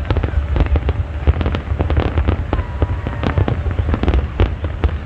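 Fireworks going off in quick succession: many sharp bangs and crackles, several a second, over a continuous low rumble, with a short whistling glide about halfway through.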